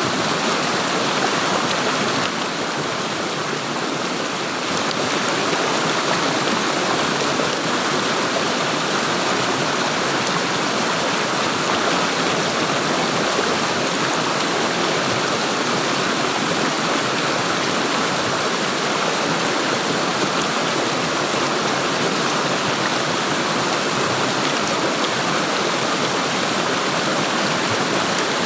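Flowing water gurgling steadily.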